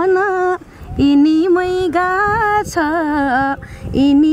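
A woman singing a folk-style melody without instruments, holding long notes with a wavering ornament in short phrases, with brief breath pauses between them.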